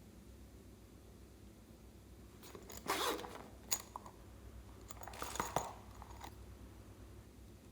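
Slime being pressed and pulled by hand: two short sticky, noisy bursts about three and five seconds in, with a sharp click between them.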